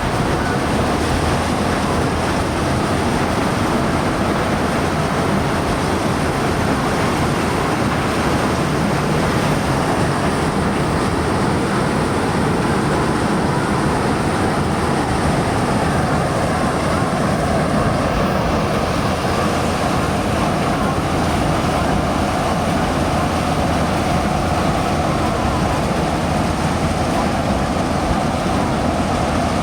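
Hira 985 self-propelled combine harvester running steadily.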